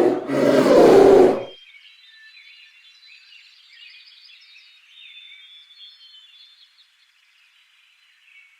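A polar bear's loud roar ends about a second and a half in. After it, faint birdsong: many short high chirps and trills.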